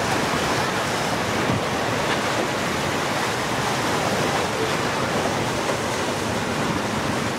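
Steady rush of surf and breaking waves, with wind buffeting the microphone.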